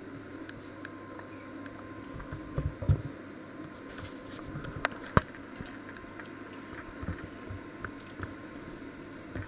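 Handling noise from a handheld camera being moved about a small kitchen: scattered clicks and knocks over a steady low hum. The loudest are a few thuds about three seconds in and a sharp knock about five seconds in.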